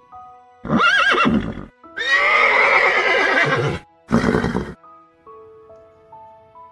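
A horse neighing three times, the middle call the longest, over soft background music of slow melodic notes.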